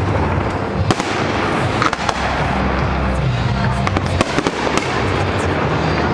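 Fireworks going off, a dense crackling with several sharp cracks, about five standing out. Music with a low bass line plays underneath.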